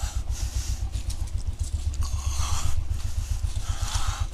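Royal Enfield single-cylinder motorcycle engine running at low speed with a regular low thump as the bike rolls off.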